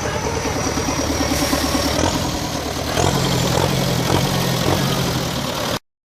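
Engine of harvest farm machinery running steadily, with a faint high whine above it. It gets a little louder about three seconds in, then the sound cuts off abruptly near the end.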